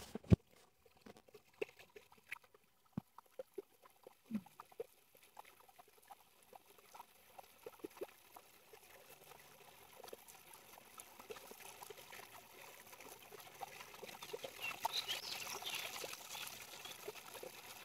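Hands scooping and splashing shallow stream water while washing the face: faint scattered clicks at first, then splashing that builds in the last few seconds.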